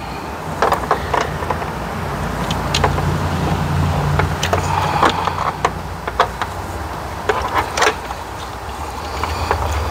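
Plastic dash trim bezel around a Chevy Tahoe's instrument cluster being pried and worked free with a screwdriver and hands: scattered plastic clicks and knocks over a steady low hum.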